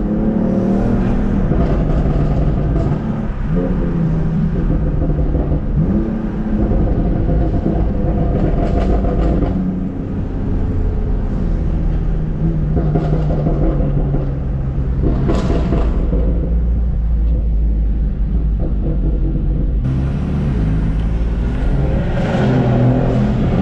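BMW F80 M3 Competition's twin-turbo inline-six, tuned to Bootmod3 Stage 1, pulling several times through the gears. Its exhaust note rises with the revs and drops between pulls.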